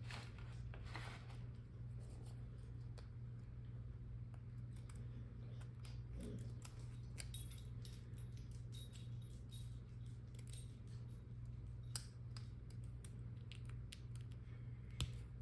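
Faint small clicks and taps of hobby tools and decal sheets being handled on a workbench, with a sharper click about twelve seconds in and another near the end, over a steady low electrical hum.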